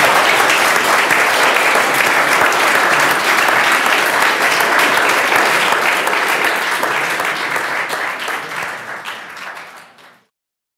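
Audience applauding with dense clapping, which dies away over the last few seconds and then cuts off abruptly.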